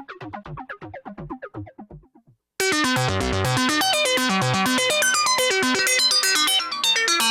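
Sonicware ELZ_1 digital synthesizer playing sequenced patterns. A run of short, plucky notes fades out, and after a brief gap, about two and a half seconds in, its 4-operator FM synth engine starts a loud, busy pattern of quick, bright notes over low bass notes.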